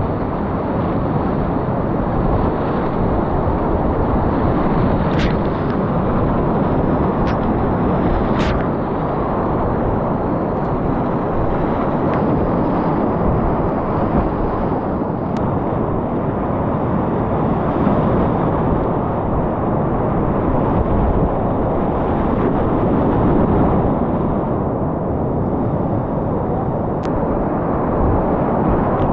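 Whitewater rapids rushing loudly and steadily around a kayak, heard from on board, with a few sharp clicks scattered through.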